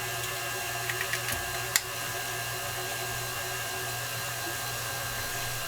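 Electric hand mixer running steadily, with one sharp tap just under two seconds in.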